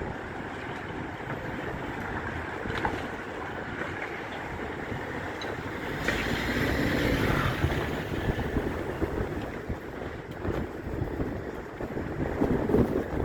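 Wind buffeting the microphone over the steady rumble of heavy demolition machinery, with a few knocks.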